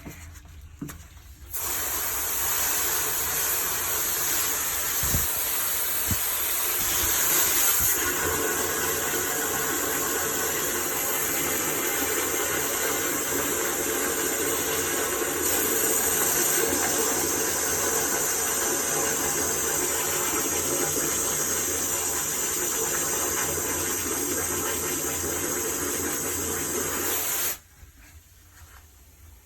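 A steady spray of water hissing down into a gravel-lined basement drain sump, flushing the cleared drain to test that it carries water away. It starts about a second and a half in and cuts off suddenly a couple of seconds before the end.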